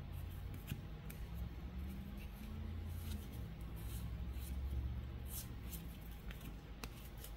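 Football trading cards and packs being handled: scattered soft clicks and rustles over a low rumble.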